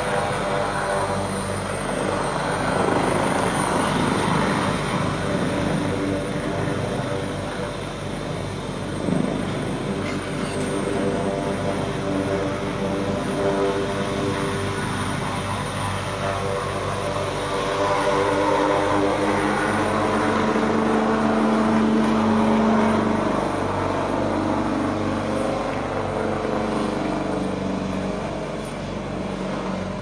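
Firefighting helicopter hovering low over the sea with a water bucket slung beneath it, its rotor beating steadily over a constant engine hum; it grows somewhat louder past the middle.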